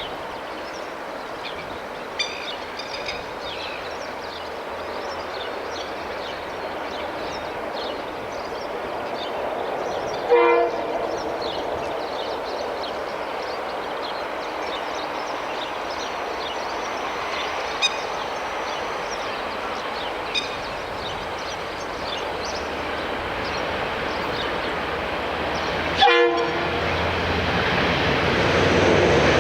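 Freight train led by KiwiRail DX-class diesel-electric locomotives approaching and growing louder. The horn sounds in short blasts about ten seconds in and again near the end, and the locomotives' engine rumble comes up in the last few seconds.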